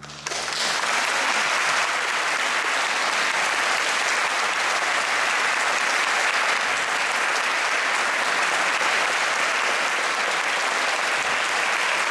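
Audience applauding, starting sharply and holding steady.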